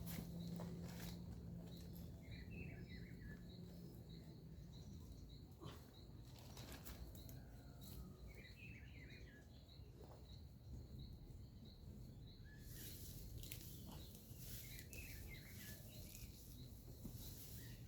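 Faint outdoor birdsong: a short high chirp repeated about twice a second and a quick falling run of notes that comes back about every six seconds, with scattered clicks and rustles. A high hiss joins in near the end.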